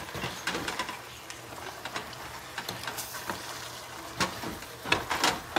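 A wooden spoon stirring okra in an aluminium cooking pot, knocking and scraping irregularly against the pot, over a low sizzle. The loudest knocks come near the end.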